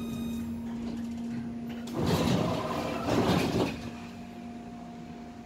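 Passenger doors of a Tatra-Yug K1M8 tram opening at a stop: two loud bursts of rushing, rattling noise about a second apart, coming just after the tram's steady running hum dies away.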